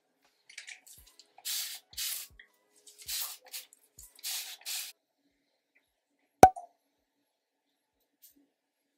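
A spray bottle giving several short sprays in quick succession, then a single sharp click, the loudest sound, about six and a half seconds in.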